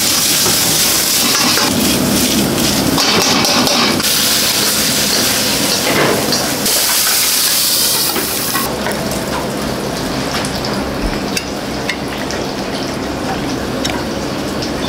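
Hot wok hissing and sizzling loudly for several seconds as chopped cabbage goes in amid billowing steam. The hiss then gives way to quieter kitchen clatter with light clicks of utensils and dishes.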